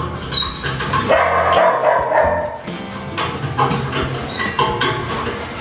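A dog barking repeatedly in a kennel bay, over background music.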